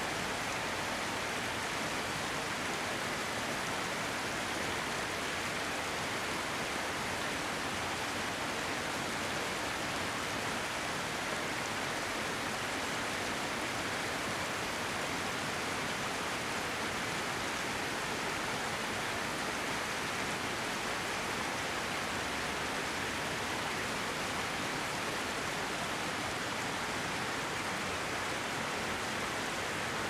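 Small stream flowing over a shallow stony riffle: a steady, even rush of water.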